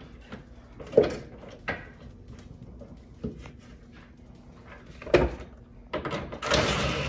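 A metal clamp clicking and knocking against the tonneau cover's aluminium side rail as it is fitted by hand, with a few sharp knocks. Near the end a cordless drill runs, driving the clamp's bolt tight.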